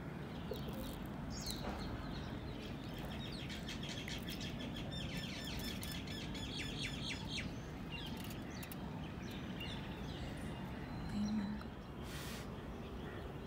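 Small birds chirping and twittering, with a fast run of high chirps through the middle, over a steady outdoor background noise. A short low sound comes near the end.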